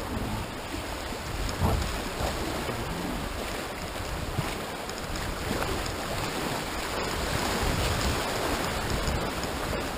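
Fast, high creek water rushing through class I–II riffles around a kayak: a steady wash of whitewater splashing at the hull, a little louder in the second half, with wind rumble on the microphone.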